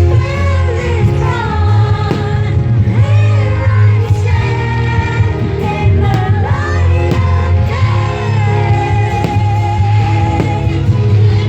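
Pop song with a singer over a steady, heavy bass line, played loud.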